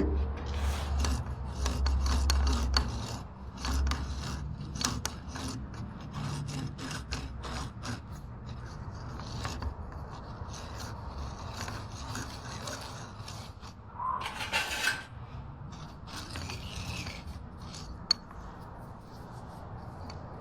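Hand work scraping and rubbing, repeated and irregular, with many small clicks and a few knocks, and a heavier low rumble in the first few seconds.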